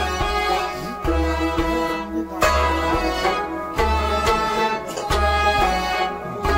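Kashmiri folk ensemble playing: a bowed sarangi carries a sustained melody over a plucked rabab, with a low hand-drum stroke about every second and a quarter.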